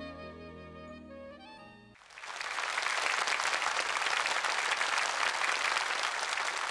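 The instrumental ending of a song fades out over about two seconds; then applause from a studio audience cuts in suddenly and runs on steadily.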